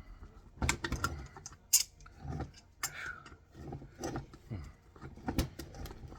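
Hand wrench and socket clicking and clanking on a large metal plug receptacle while working at a seized bolt, in irregular knocks with one sharper clank about two seconds in. The bolt is too tight to turn without penetrating oil.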